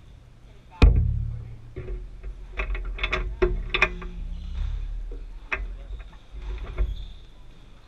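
Camera handling noise: a sharp knock about a second in, then a low rumble with scattered clicks and taps while the camera is shifted and re-aimed.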